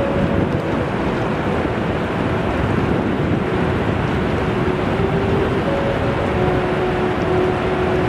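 Ocean surf washing up a sandy shore: a loud, steady rush of breaking waves with no pauses.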